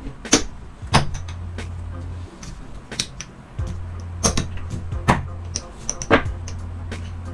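Casino chips being handled and set down on a felt table: sharp, short clacks of chips knocking together, about six loud ones at uneven intervals, as a stack of chips is paid out beside a hand.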